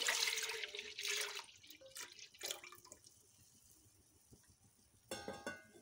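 Milk pouring from a container into a nonstick pot, splashing at first, then trailing off into a few drips about two seconds in. A brief ringing sound comes near the end.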